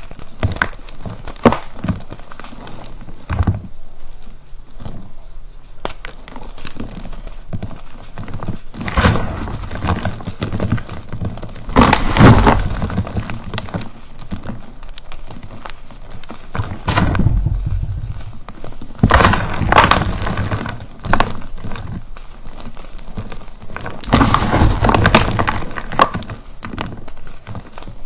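Reformed gym chalk being crumbled and crushed between the fingers: crisp crunching and crackling as the chunks break, with pieces and powder pattering back onto the pile. The crunching swells into louder, denser stretches several times.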